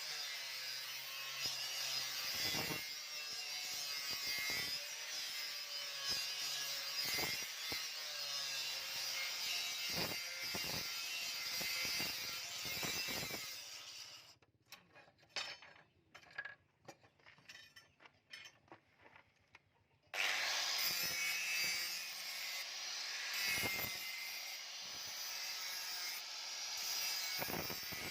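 Steel sword blade being abraded: a steady rasping of metal on an abrasive, with repeated strokes. It stops for several seconds around halfway, leaving only a few small clicks, then starts again.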